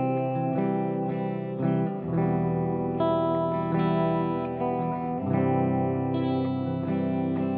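Electric guitar playing sustained chords through a Catalinbread Adineko oil-can delay pedal, the chords changing every two to three seconds.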